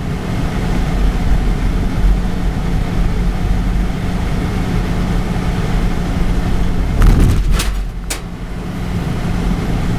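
Car cabin noise while driving: steady road and engine rumble with a constant low hum. About seven seconds in there is a brief louder thump, followed by a couple of sharp clicks.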